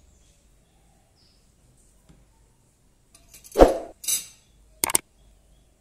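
An added subscribe-button sound effect over near silence. About three and a half seconds in comes a thump and a swell, then a short high hiss, then two quick clicks near the end.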